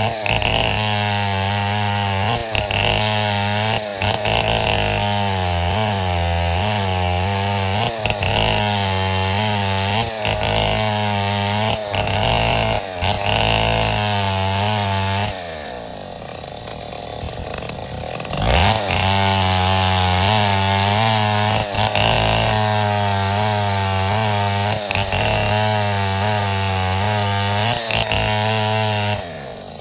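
Chainsaw running under load as it cuts through wood, its pitch wavering with the cut. About halfway through it drops back towards idle for a couple of seconds, then revs up again and keeps cutting.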